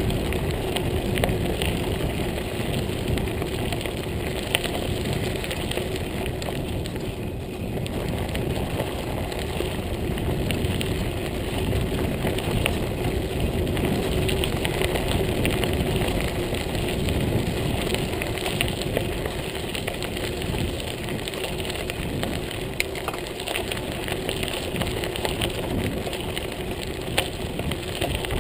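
Montague Paratrooper Pro mountain bike rolling along a gravel trail: steady tyre noise on loose gravel with occasional small clicks and rattles.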